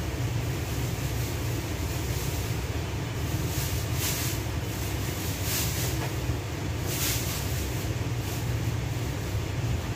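Steady low hum and even rushing noise of a kitchen range hood fan running over a lit gas burner, with brief hissy swells about four, five and a half and seven seconds in.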